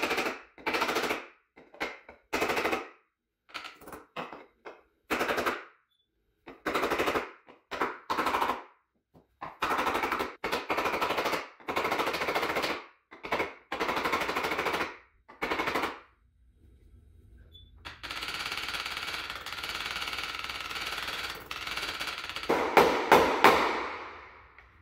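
A hammer beating on a wooden block that sits over a Mid BB bearing, driving the bearing into a BMX frame's bottom bracket shell. The taps come in short bursts of very fast knocks that start and stop abruptly. Then there is a stretch of steady noise, and a few harder, separate hits near the end.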